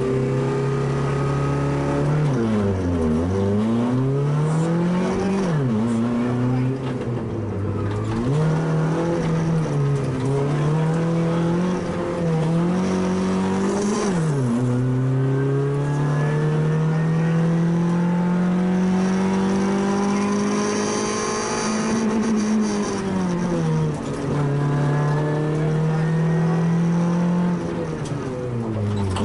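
Small one-litre rally car engine heard from inside the cabin, revving hard and climbing in pitch, then dropping sharply at each gear change or lift for a corner, several times over.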